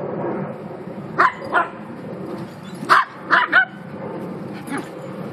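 Dogs barking during a scuffle: two short sharp barks, then three more in quick succession about a second and a half later.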